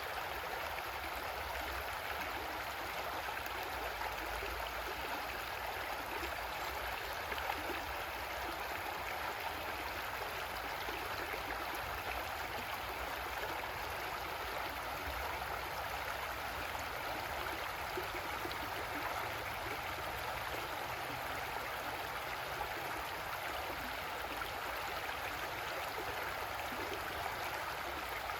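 Creek water flowing and gurgling over rocks in a steady, even rush.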